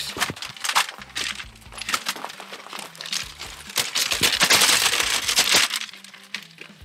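Segmented aluminium ladder clicking and rattling as its sections are unfolded and stretched out over gravel, with a longer scraping, crunching stretch around the middle.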